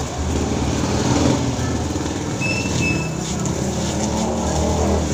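A steady low rumble, like a running motor vehicle, with two short high beeps about halfway through.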